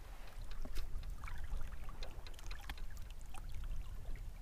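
Small water sounds lapping and trickling against a kayak hull, with scattered light ticks and splashes over a low rumble.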